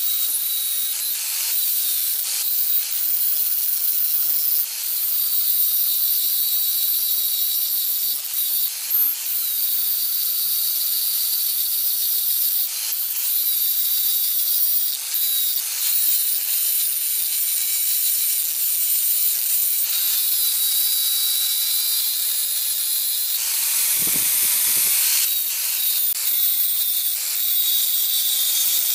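Electric power tool abrading a rusty steel hatchet head: a steady motor whine that wavers slightly in pitch under pressure, over a continuous harsh hiss. About five seconds before the end the sound briefly turns fuller and deeper.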